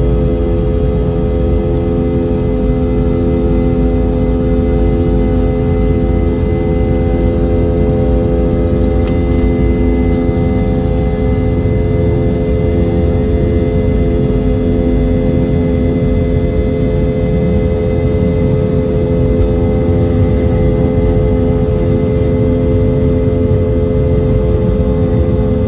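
Rolls-Royce BR715 turbofan of a Boeing 717 at takeoff thrust during the takeoff run and climb-out, heard inside the cabin right beside the rear-mounted engine. It is a steady, loud drone: a deep rumble under several steady tones, one of them a high whine.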